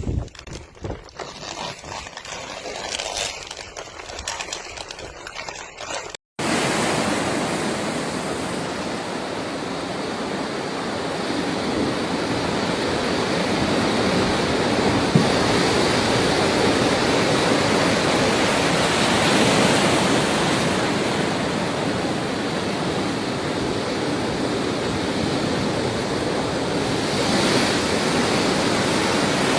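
Cyclone storm of heavy rain and strong wind. For about six seconds it comes in uneven gusts; after a short cut it becomes a dense, steady rush.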